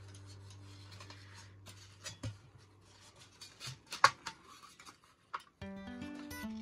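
Hard plastic folding table being handled: scattered clicks and short rubbing noises as its hinged panels are folded and moved, with one sharp snap about four seconds in. Background music comes in near the end.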